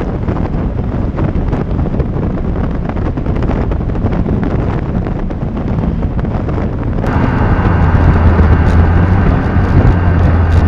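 Hot rod 1933 Ford roadster's engine running as it drives, heavily buffeted by wind on the microphone. About seven seconds in the sound switches abruptly to a louder, steadier engine drone heard from the open cockpit.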